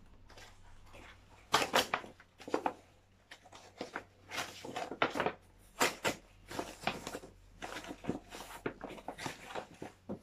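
Paper gift wrapping and packaging rustling and crinkling in short irregular bursts as a gift is unwrapped by hand.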